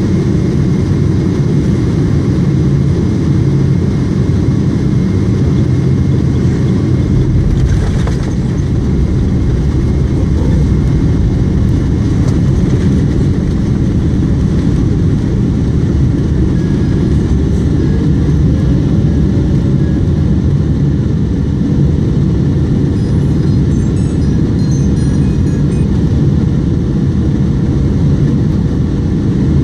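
Cabin noise of a Boeing 777 landing: a loud, steady rush of engines and airflow. From about seven seconds in, a deeper rumble joins it as the wheels touch down and roll along the runway.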